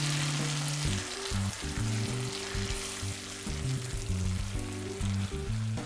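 Diced tomatoes and shallots sizzling in butter in a hot skillet as they are stirred with a wooden spoon, with background music of held low notes underneath.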